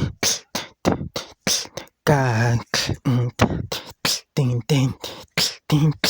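Beatboxing: one voice making mouth percussion, a quick run of short, sharp beats at about three a second, some hissing and some with a short voiced tone.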